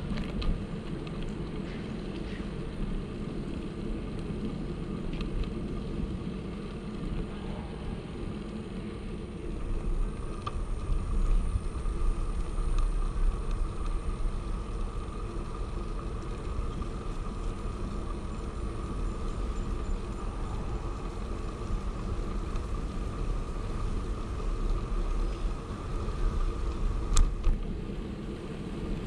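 Steady rushing and rumbling of a bicycle in motion: wind on the microphone and tyres on the path. It grows louder for a few seconds about ten seconds in, and there is one sharp click near the end.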